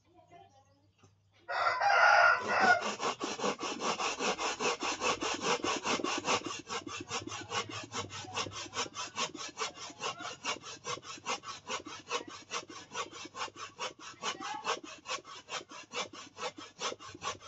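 Fresh coconut flesh rubbed up and down on a flat metal hand grater standing in a stone mortar: a steady rasping at about four strokes a second, starting about a second and a half in.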